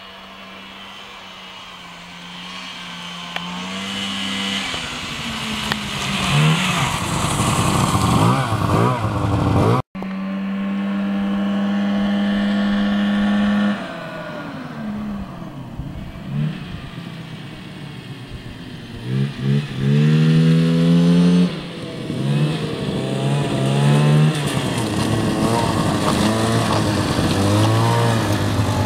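Ski-Doo snowmobile engines running. One sled approaches and gets louder until a sudden cut; then a sled holds a steady high engine note for a few seconds and revs up and down several times as it comes close.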